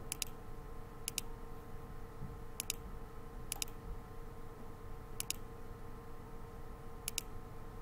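Computer mouse clicks: six quick double clicks at irregular intervals, over a faint steady hum.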